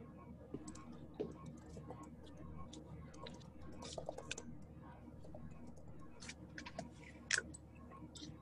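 Faint, irregular clicks and taps of a computer mouse and keyboard over a low steady hum, with one louder click about seven seconds in.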